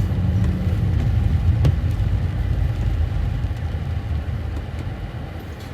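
Steady low rumble of a Jeep's engine and road noise heard inside the cabin, slowly fading toward the end, with a single light click about a second and a half in.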